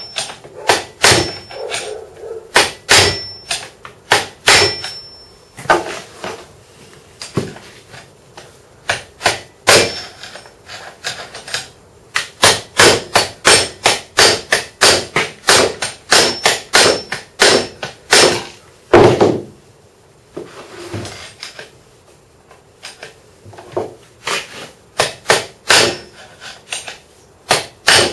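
Hammer blows on a screwdriver set in a notch of a chainsaw clutch, knocking the clutch round to unscrew it while the piston is jammed with rope. Dozens of sharp whacks come in quick runs of several a second, broken by short pauses.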